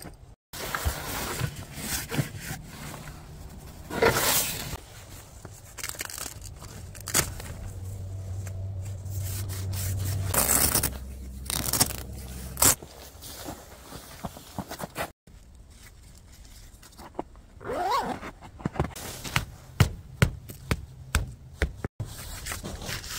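Tent fabric rustling and scraping as the tent's outer fly is handled and adjusted, then a quick series of sharp knocks near the end: a mallet driving a tent stake in at the tent's base.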